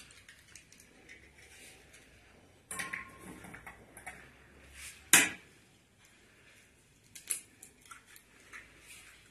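Eggs cracked one by one against the rim of a metal mixing bowl: a few sharp knocks with the crackle of breaking shell, the loudest about five seconds in.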